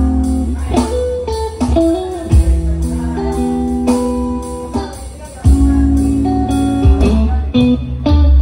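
Live band playing an instrumental passage: electric guitar over held keyboard chords and a heavy bass, with a steady beat.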